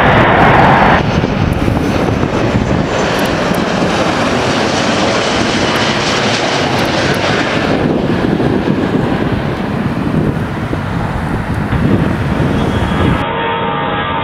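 Jet engines of a low-flying Airbus A330 wide-body airliner on landing approach, a steady rushing noise. The sound changes abruptly a few times where shots are cut together, and near the end it turns quieter and duller.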